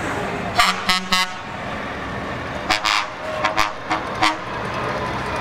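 Truck horns tooting over the steady noise of passing trucks: three quick blasts about half a second in, then a run of about six shorter toots a couple of seconds later.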